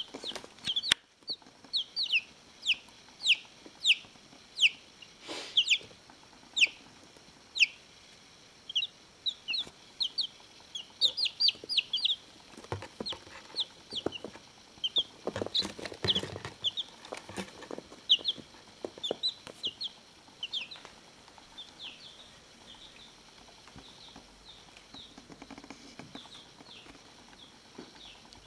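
Baby chicks peeping: many short, high, falling cheeps in quick succession, thinning out and growing faint over the last several seconds. A few light knocks and rustles come around the middle.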